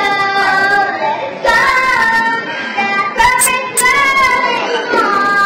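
A young child's voice delivering a dramatic declamation in a drawn-out, sing-song manner, with long held, gliding pitches, like singing.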